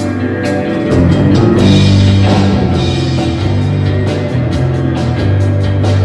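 Live rock band playing with drums, bass and electric guitar: the drums keep a steady beat with cymbal strokes over sustained bass notes, and the band gets louder about a second in.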